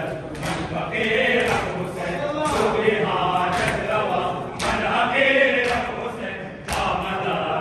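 A crowd of men chanting a Muharram noha (mourning lament) together, with unison chest-beating (matam) striking in a steady beat about once a second.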